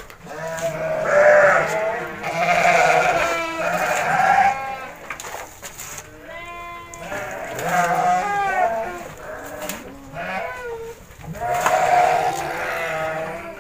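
Several penned sheep bleating again and again, their calls overlapping, each call with a trembling, wavering pitch.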